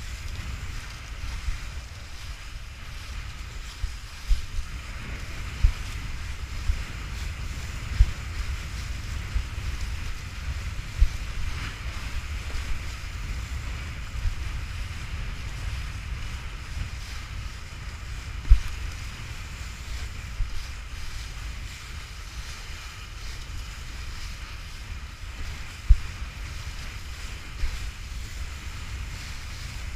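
Wind buffeting the microphone in a low rumble over the steady hiss of water spraying off a kiteboard planing across chop. Now and then a sharper low thump breaks through, two of them louder than the rest in the second half.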